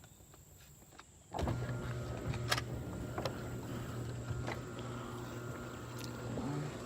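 Chamberlain garage door opener starting about a second and a half in and running steadily, raising a Wayne Dalton sectional door, with a few sharp clicks and rattles from the door as it travels.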